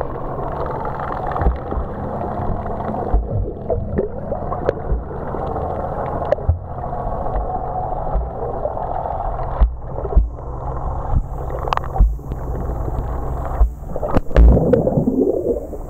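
Muffled underwater sound from a camera below the surface: a steady low boat-engine hum carried through the water, with bubbling and scattered knocks and thumps. A louder burst of bubbling comes near the end.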